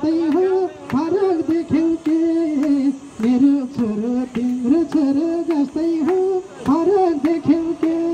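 A voice singing a slow song or chant into a handheld microphone, holding long notes with bends between short breaths.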